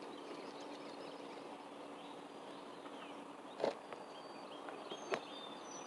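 Faint outdoor ambience with thin, high bird chirps, and two short sharp clicks, about three and a half and five seconds in.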